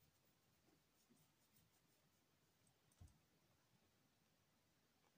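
Near silence: room tone, with one faint, soft low thump about three seconds in.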